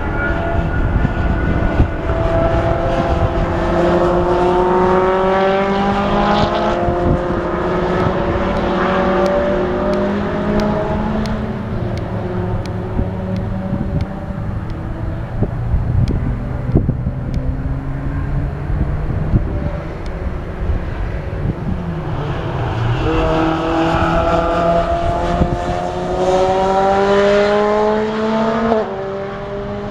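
Racing cars running on a circuit, their engines rising in pitch as they accelerate through the gears, one after another. There is a climb in the first few seconds and a louder one about three quarters of the way in, broken by a sudden drop in pitch near the end as a gear changes.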